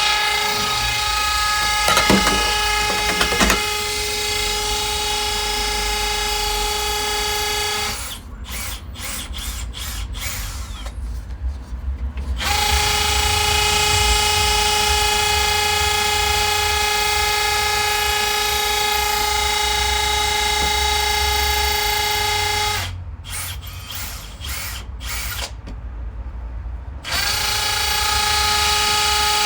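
Power drill running with a steady whine in three long runs, stopping about 8 seconds in and again about 23 seconds in, drilling the fixing holes for a key safe.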